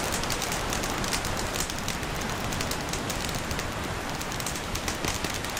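Fireball sound effect: the steady, dense crackle of burning flames, with no single blast standing out.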